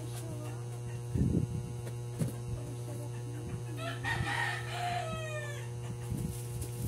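A rooster crows once, about four seconds in: a long call whose pitch bends down at the end. Before it come a few low thumps of boxed goods being handled and set down, the loudest about a second in, over a steady low hum.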